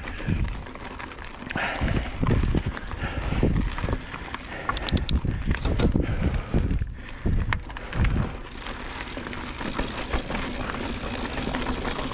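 Motobecane HAL Boost Eagle mountain bike ridden over rocky singletrack: tyres crunching and thumping unevenly over rocks and the bike rattling, with a few sharp clicks about five seconds in. From about eight seconds in it settles into a steadier rolling rush.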